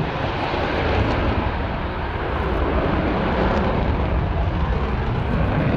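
Lockheed Martin F-22A Raptor's twin Pratt & Whitney F119 turbofans in flight, a loud, steady jet rumble with deep low end that swells slightly in the first second and then holds.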